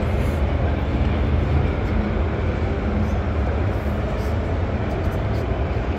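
Steady exhibition-hall din: a constant low rumble with a blur of crowd voices over it.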